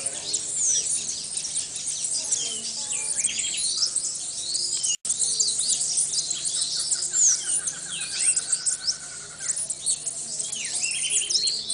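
Many hummingbirds squeaking and chittering at once around sugar-water feeders: a dense, high-pitched chorus of short chirps, with one bird giving a rapid run of repeated notes in the second half. The sound breaks off for an instant about five seconds in.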